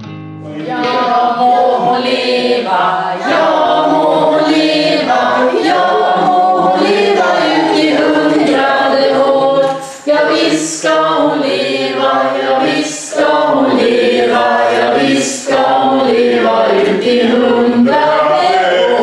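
A group of people singing a birthday song together, unaccompanied, with a short break about halfway through.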